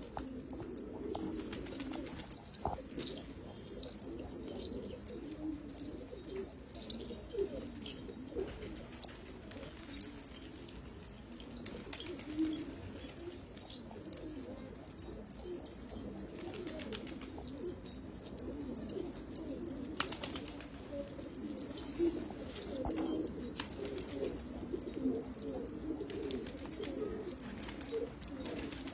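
Domestic pigeons cooing, many overlapping coos, with thin high chirps of small birds and an occasional sharp click mixed in.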